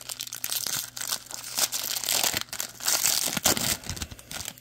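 A 2018 Bowman baseball card pack's foil wrapper being torn open and crinkled by hand, with irregular crackling throughout.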